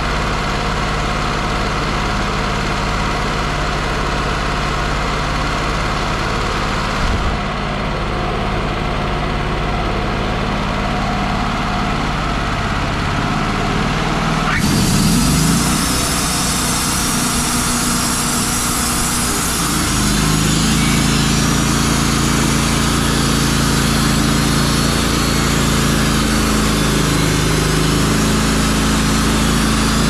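Wood-Mizer LT35 sawmill's air-cooled gasoline engine running steadily. About 15 seconds in there is a short rising whine and a click as the mill's controls are worked, and about 20 seconds in the engine note steps up a little and holds.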